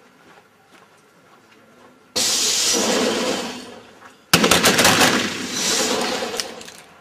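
Two loud bursts of black powder revolver fire from a line of shooters, about two seconds apart. Each starts with a sudden crack and dies away over a second or two.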